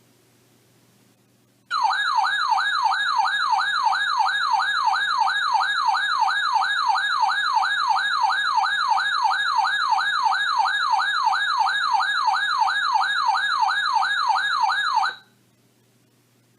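Electronic warbling alert alarm of a weather-alert radio receiver, triggered by a severe weather warning. A single tone sweeps up and down about three times a second. It starts suddenly about two seconds in and cuts off abruptly some thirteen seconds later.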